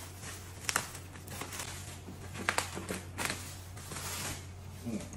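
Scissors snipping through plastic bubble wrap and packing tape, with the wrap crinkling: a handful of short, sharp cuts at irregular intervals over a steady low hum.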